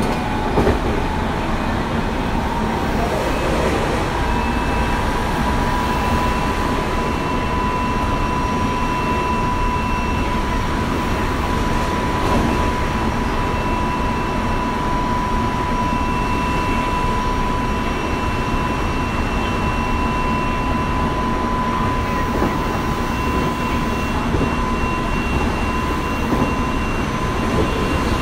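Tobu 9050 series electric train with Toyo GTO-VVVF drive running at a steady speed: a continuous rumble of wheels on rail with a steady high tone over it.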